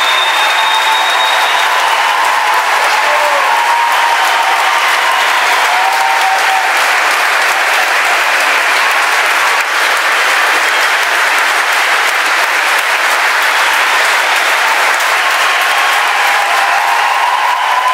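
Large audience applauding steadily in a sustained ovation, with a few faint voices or whistles rising above the clapping at the start and near the end.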